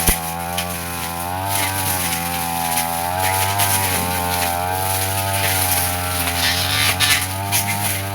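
Petrol brush cutter running steadily, its engine pitch wavering a little, with brief crackles as the blade cuts through grass and undergrowth.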